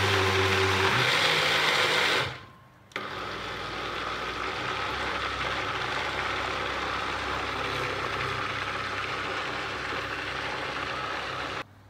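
350-watt personal blender running as it mixes thick chocolate cake batter: a loud first run that stops about two seconds in, then after a brief pause a second, quieter run of about nine seconds that cuts off near the end.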